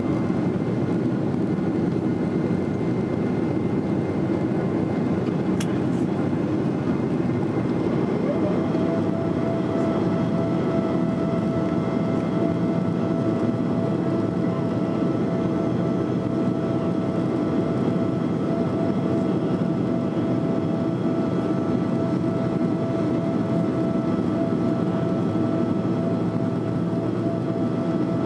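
Steady cabin noise of a Boeing 767-400ER climbing after takeoff: engine and airflow noise, with a steady whine setting in about eight seconds in and a single click shortly before.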